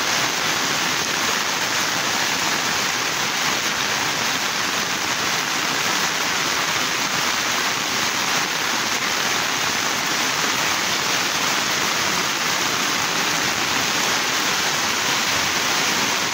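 Heavy monsoon downpour: a dense, steady hiss of rain falling on a wet road and pattering on an umbrella overhead.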